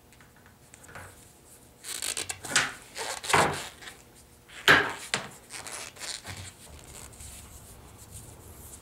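Handling noise from shooting sticks being assembled: foam insulation grips rubbing as they slide along the stakes, with several sharp knocks and scrapes, the loudest a little under five seconds in, then quieter fiddling.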